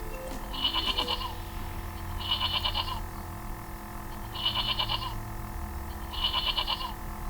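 A goat bleating four times, each bleat a wavering call under a second long, with a pause of a second or so between bleats.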